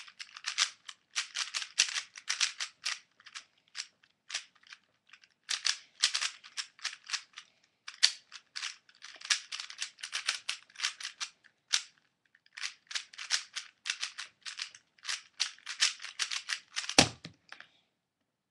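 Stickerless DaYan ZhanChi 3x3 speedcube being turned fast during a solve: rapid runs of plastic clicking and clacking, broken by brief pauses, ending with one louder thump a little before the end.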